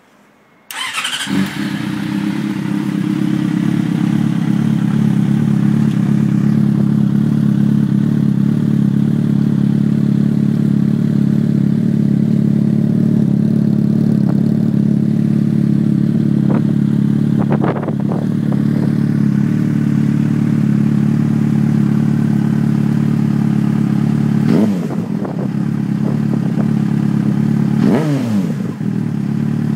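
Yamaha FZ6 inline-four engine with a LeoVince exhaust, baffle removed, starting up about a second in and idling steadily, then revved in a few short throttle blips in the second half.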